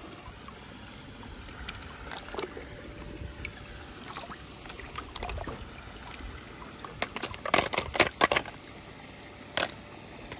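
A steady low hiss with scattered sharp clicks and knocks, loudest in a quick cluster about seven to eight and a half seconds in and once more near the end.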